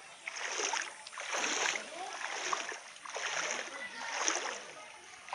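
Footsteps wading through shallow floodwater, a sloshing splash with each step about once a second.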